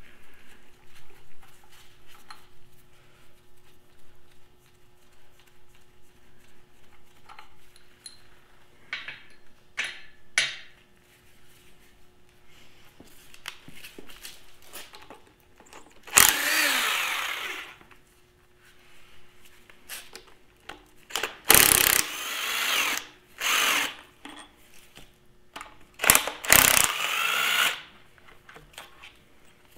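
Cordless power tool running in four runs, two of them about two seconds long, spinning bolts out of a Farmall Super M engine block during teardown. Its pitch rises and falls on the first run. Light clinks and taps of tools and parts come before it.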